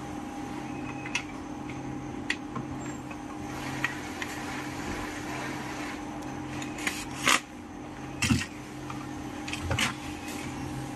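Plastic steamer housing parts being handled on a workbench: scattered light clicks and rubbing, with three louder plastic clacks in the second half, over a steady low hum.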